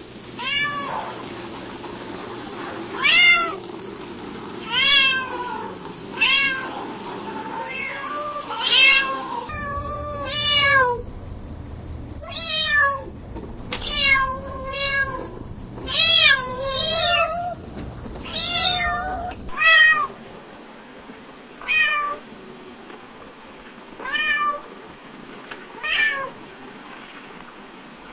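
Domestic cat meowing softly, about sixteen short meows each rising then falling in pitch, spaced a second or two apart. A low hum sits under the middle stretch.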